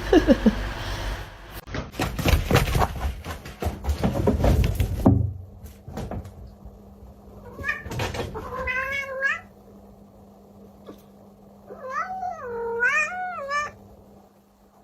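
A cat meowing twice in long, wavering, warbling calls, the first about eight seconds in and the second about twelve seconds in. Before them come a few seconds of busy clattering and knocking.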